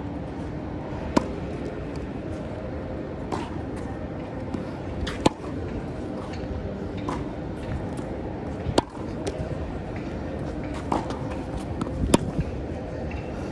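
Tennis ball struck back and forth in a rally: a sharp pop of racquet strings on the ball every three to four seconds, with fainter ball bounces on the hard court between the hits, over a steady low background hum.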